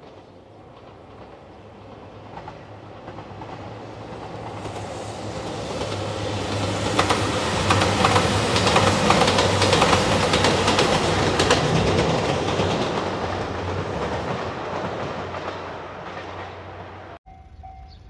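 JR Shikoku 2700 series diesel limited express train passing: engine hum and wheel noise build up, peak with a clatter of wheels over rail joints, then fade as it goes by. Near the end a level crossing bell starts ringing.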